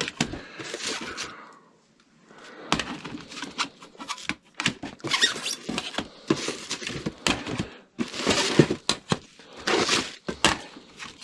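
Old records being handled and flipped through in a stack: paper sleeves rustling and discs clicking and knocking against each other. There is a short pause about two seconds in.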